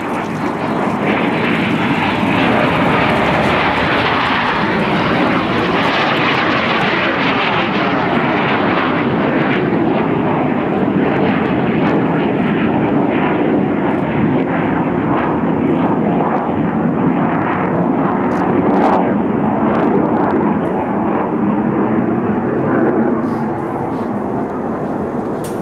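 Loud, steady jet noise from the twin turbofan engines of an F/A-18 Hornet flying low past. The sound dulls as its higher part fades from about a third of the way in, and it is a little quieter near the end.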